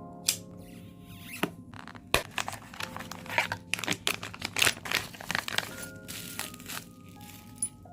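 Background music over the crinkle and rustle of packaging and many sharp clicks and knocks as a camera-rig monitor mount is unpacked and handled, busiest in the middle.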